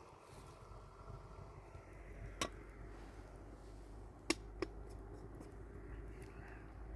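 Three sharp knocks: one about two and a half seconds in, then two close together a little past four seconds, over a faint low rumble.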